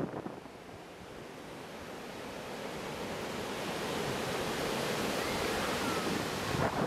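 Ocean surf breaking and washing up a sandy beach, a steady rush that slowly swells louder, with a brief gust of wind on the microphone at the start.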